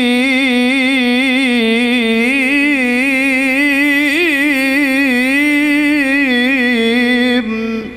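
A man reciting the Qur'an in the melodic tilawah style, holding one long ornamented note with a continuously wavering pitch that breaks off near the end.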